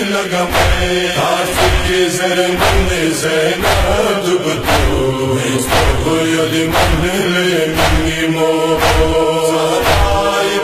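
Noha, a Shia mourning lament in Balti: men's voices chanting together in a drawn-out refrain over a steady heavy beat about once a second.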